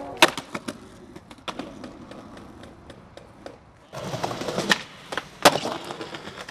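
Skateboard on concrete: a sharp clack of the board just after the start and scattered lighter knocks, then wheels rolling from about four seconds in, with two loud clacks about three-quarters of a second apart.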